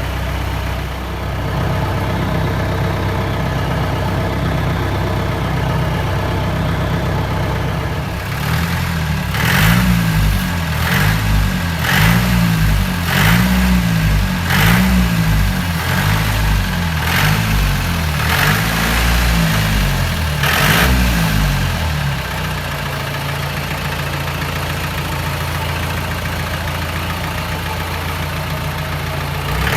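Jeep engine idling, then revved over and over, about ten blips of the throttle a little over a second apart, before settling back to a steady idle near the end. It is being warmed up after standing unused for many days.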